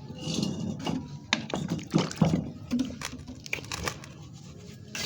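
Dried sand-and-cement mix crunching, a quick irregular run of sharp gritty crackles.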